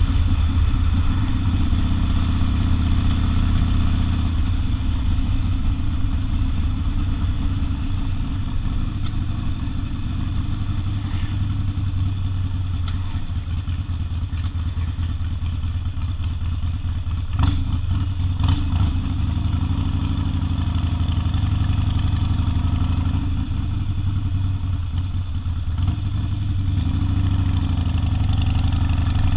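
Harley-Davidson Sportster V-twin running through open exhaust at low, steady revs, easing a little through the middle. Two short sharp knocks come a little past halfway, and the revs begin to rise at the very end.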